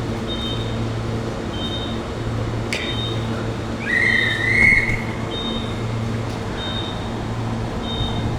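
Ambience of an NGR electric train standing at a station platform: a steady low hum with an electronic beep pattern repeating about once a second. A short, loud rising whistle-like tone sounds about four seconds in.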